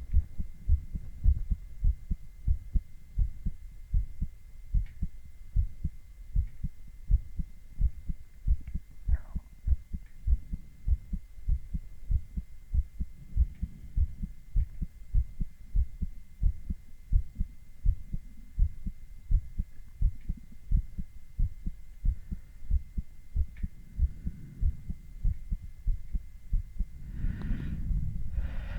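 A man's heart beating as heard through a stethoscope: a steady rhythm of low lub-dub thumps, with a faint steady high tone underneath and a brief rustle near the end.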